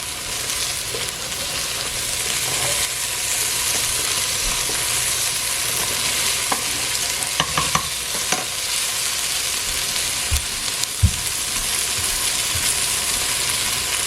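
Sliced okra frying in vegetable oil on low heat: a steady, even sizzle, with a few brief knocks around the middle.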